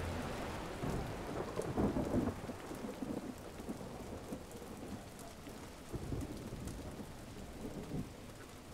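Steady rain falling, with low rumbles of thunder rolling in about a second in and fainter ones later on.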